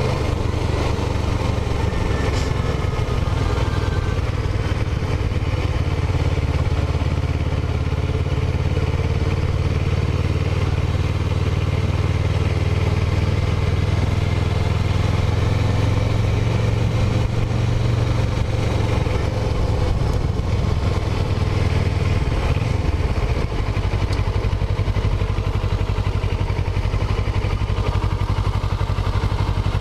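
Kawasaki Ninja 650R's parallel-twin engine running steadily under way, its pitch dropping about three-quarters of the way through. The engine is running fine after an air-filter check and tune.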